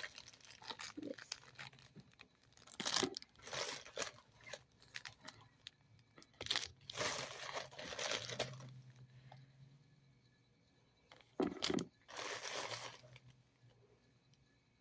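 Plastic wrapping crinkling and tearing in irregular bursts with quiet gaps between, as small fidget toys are unwrapped and handled.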